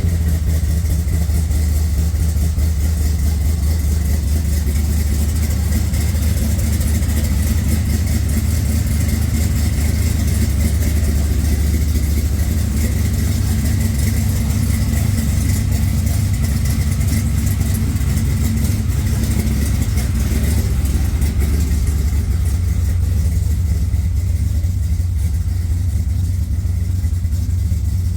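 Car engine idling steadily just after being started.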